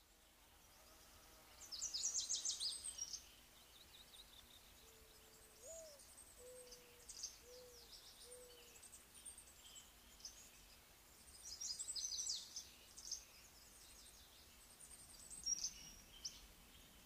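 Faint outdoor birdsong: high, quick chirping trills from songbirds in several bursts, loudest about two seconds in and again about twelve seconds in. Partway through, a low cooing call of five short notes, the second one rising.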